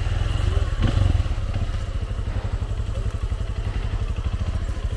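Motorcycle engine running steadily at low revs, with a rapid even firing pulse.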